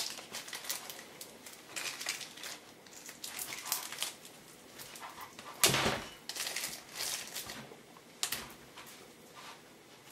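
Thin plastic wrapping crinkling and crackling in short irregular rustles as it is worked off a headset's microphone boom, with one louder crackle about halfway through.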